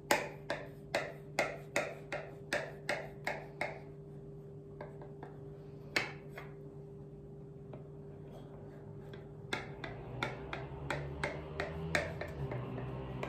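Kitchen knife clicking against the bottom of a glass baking dish as it is worked through a soft chilled cocoa pudding cake: a quick regular run of about ten clicks, a lone click midway, then another run of clicks near the end.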